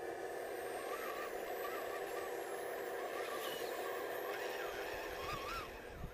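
Electric motor and gear drivetrain of a 1:10 scale RC Land Rover Defender crawler whining steadily as it creeps over rocks, the pitch wavering slightly with the throttle. The whine drops away near the end.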